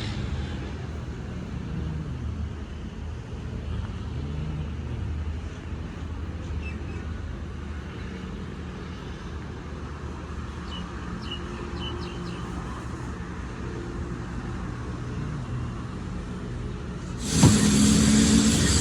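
A large engine running steadily, a low rumble whose pitch briefly rises and falls a couple of seconds in. About a second before the end, a much louder hissing, clattering noise with sharp knocks cuts in suddenly.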